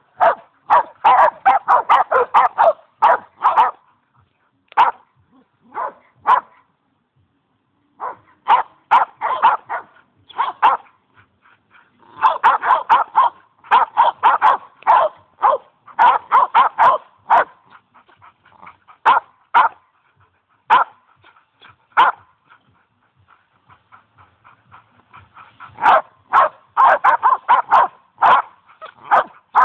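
Several boxer dogs barking at one another in quick volleys of short, sharp barks, broken by lulls of a second or two before the next bout.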